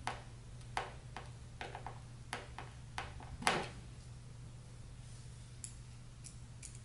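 Light, scattered clicks and taps of small screws against the steel mounting plate of a hairpin table leg as the screws are started by hand into the table panel, the loudest about three and a half seconds in.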